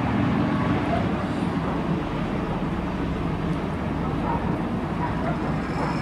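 Steady low engine rumble with outdoor street noise.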